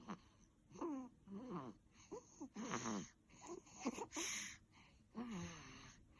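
Squeaky, wheezing snoring in sleep: a string of short breaths about once a second, several with a high whining pitch that bends up and down, and a hissing snort-like breath about four seconds in.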